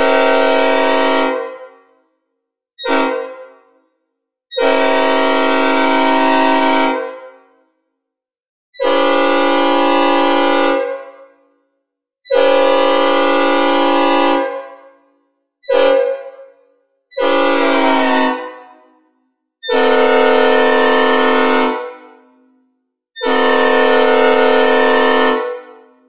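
Synthesized recreation of a Nathan P5A five-chime air horn in its "mixed cast" version, sounded as a chord in about nine blasts, some short and most long, each with a short reverberant tail as it cuts off.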